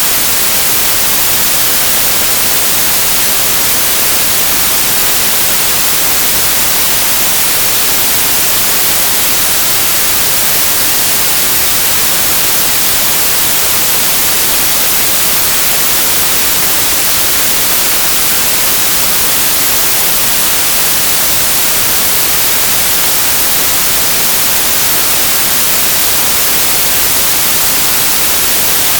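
A loud, steady hiss of white noise, even and unchanging throughout, with no tones or separate sounds in it.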